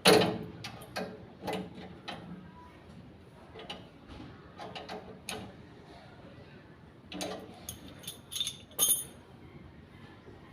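Irregular clicks and knocks from tools and parts being handled, loudest right at the start, with a quick cluster of several near the end.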